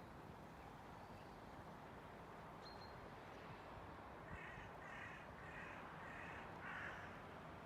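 A bird calling five times in quick succession, each call about half a second apart, starting a little past halfway, over a faint steady hiss.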